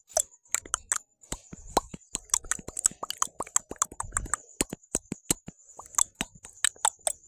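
Rapid mouth clicks and tongue pops, several a second, some with a short pitched plop.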